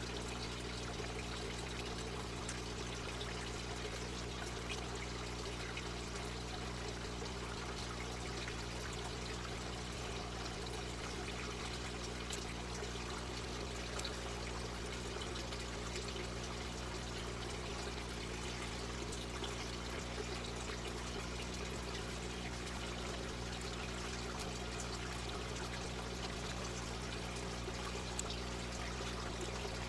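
Water trickling and splashing steadily in a small aquaponics system, over a steady low machine hum.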